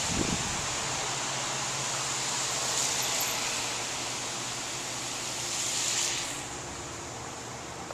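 Steady hiss-like background noise with a low hum, and a brief low bump just after the start.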